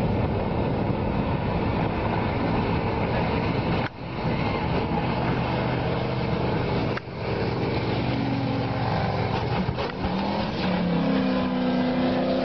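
Speedboat engine running hard at speed, a steady drone over rushing noise that rises in pitch near the end. The sound drops out briefly twice.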